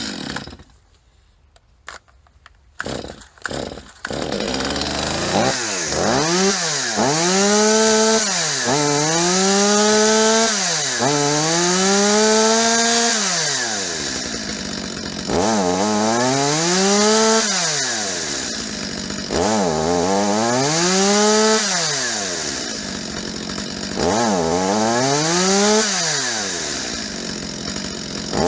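Stihl MS250 two-stroke chainsaw pull-started, a few sharp pulls and then the engine catching about four seconds in. It is then revved up and down repeatedly, every few seconds, and is still hesitating as the revs climb, which the owner puts down to a dirty carburetor.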